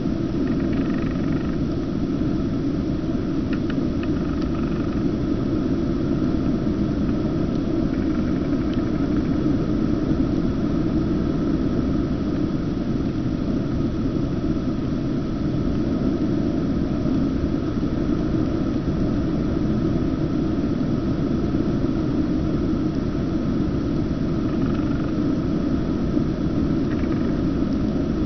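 Steady, unbroken rumble of engine and airflow heard from aboard a small aircraft in flight.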